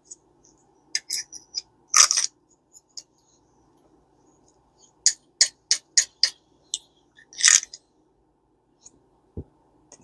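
Small metal parts of a Garcia Mitchell 410 spinning reel being handled and fitted: light clicks and scrapes, then a quick run of five sharp ticks about halfway through, another scrape, and a soft low thump near the end.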